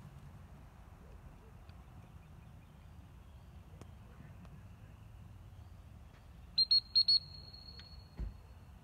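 A dog-training whistle blown in four quick blasts of one high pitch, in two pairs, about six and a half seconds in, trailing into a faint held note. A low thump follows just before the end.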